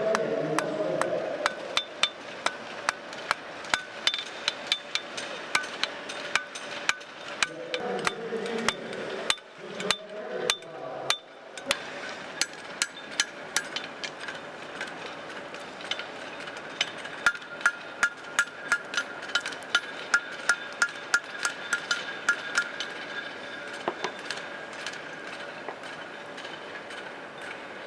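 Blacksmith's hammer striking hot steel on an anvil while forging tongs: a long series of quick blows, about two to three a second, each with a ringing metallic tone. The hammering breaks off briefly about ten seconds in, then resumes.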